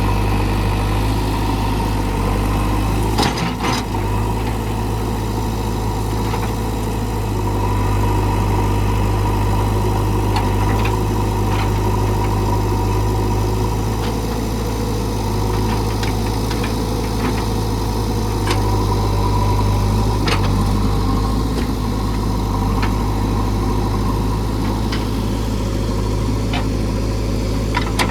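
JCB 3DX backhoe loader's diesel engine running steadily, with occasional sharp knocks and cracks, the loudest about three seconds in.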